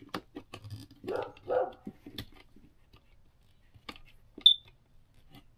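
A dog barks twice in quick succession about a second in, over small clicks of a wire cutter snipping and handling thin electrical wires. A brief high-pitched chirp, the loudest sound, comes near the end.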